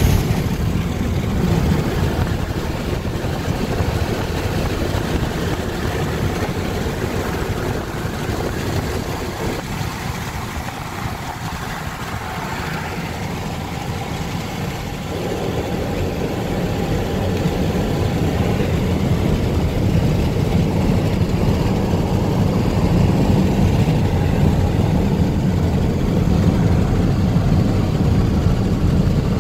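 Steady road and engine rumble of a moving car heard from inside the cabin, easing a little partway through and then growing louder again.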